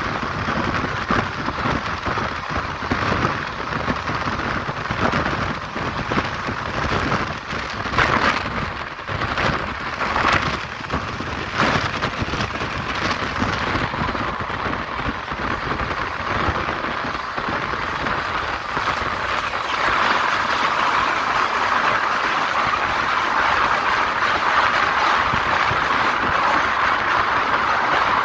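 Express passenger train running at speed, heard from an open coach door: a steady rush of wind and wheel-on-rail noise with irregular knocks. About twenty seconds in it turns louder and smoother as the train runs onto a steel truss bridge.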